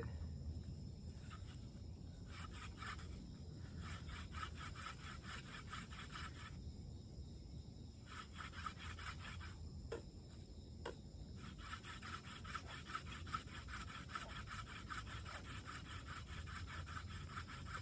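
Hand-drill spindle, a dog fennel tip on a river cane shaft, twisted back and forth in the notched divot of a wooden hearth board: a rapid, rhythmic dry rubbing, with short breaks about seven seconds in and again around ten to eleven seconds. Light pressure, just warming the board up at the start of a friction-fire attempt.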